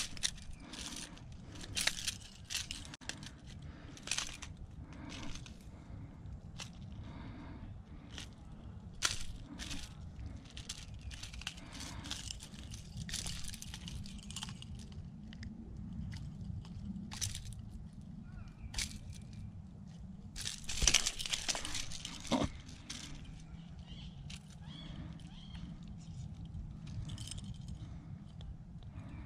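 Close handling noise: irregular rustles, crunches and clicks, with a louder rustling burst about two-thirds of the way through, over a low steady rumble.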